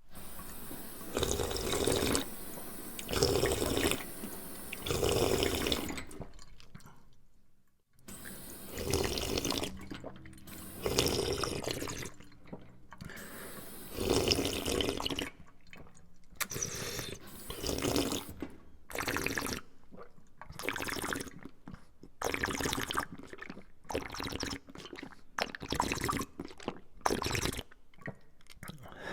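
A person drinking, heard as a string of separate gulps. After a pause about seven seconds in, they come shorter and quicker, about one a second.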